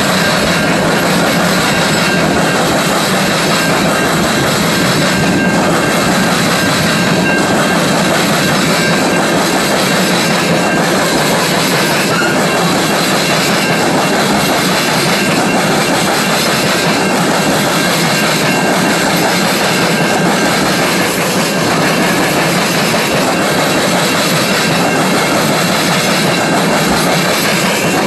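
Freight train of tank cars and covered hoppers rolling past: loud, steady noise of steel wheels on rail, with a clickety-clack of wheels passing over rail joints.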